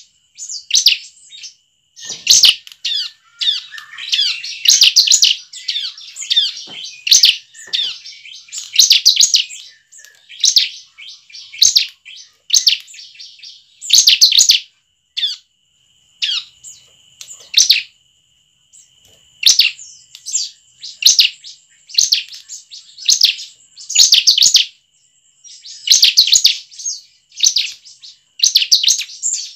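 Bar-winged prinia (ciblek) calling in short, sharp, high chirping bursts, roughly one a second, with a busier run of quick notes a few seconds in.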